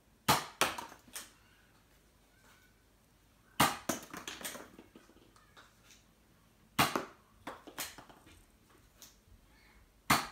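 Nerf blaster firing foam darts four times, about three seconds apart; each sharp shot is followed by a short run of lighter clicks and clatter as the dart lands among cardboard toilet-roll tubes.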